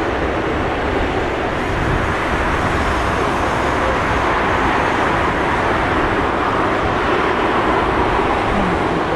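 Bombardier Dash 8 Q400 turboprop airliner taking off, its two turboprop engines and propellers making a loud, steady rushing noise.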